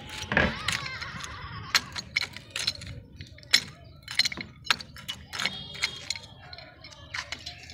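Pipe wrench working a rusted threaded pipe joint at a water tank outlet: irregular sharp metallic clicks and knocks as the jaws grip, slip and turn, with a couple of brief squeaks from the joint.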